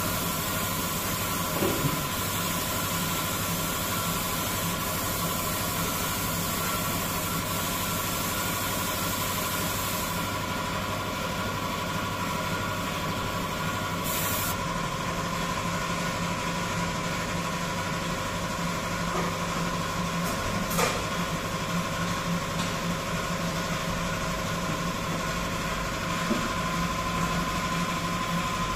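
A machine running steadily: a constant hum with a high whine and hiss. There is a short burst of hiss about fourteen seconds in and a sharp click near the twenty-one-second mark.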